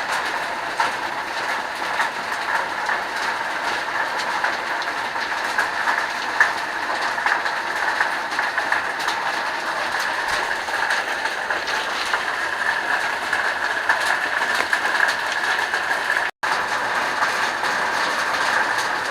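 Steady rush of a swollen waterfall, with small splashes and drips throughout. The sound cuts out for an instant near the end.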